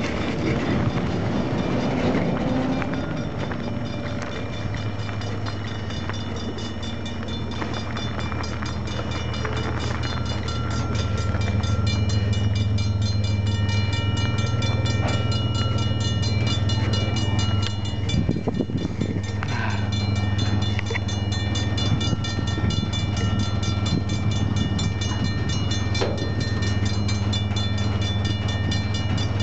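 Coal train at a railroad grade crossing: the crossing bell rings in a fast steady rhythm over a steady low engine hum, which grows louder about ten seconds in.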